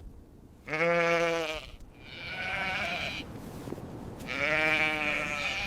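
Sheep bleating: three drawn-out bleats, one after another.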